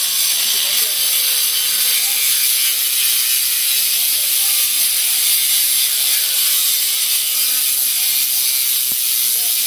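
Electric angle grinder grinding stone: a loud, steady, high grinding noise with a faint motor whine beneath it.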